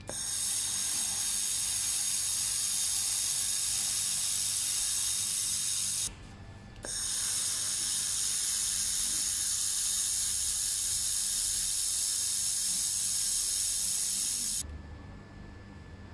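Handheld fiber laser welding gun hissing steadily as it welds a metal tube joint, in two runs: about six seconds, a brief break, then about eight seconds, cutting off near the end.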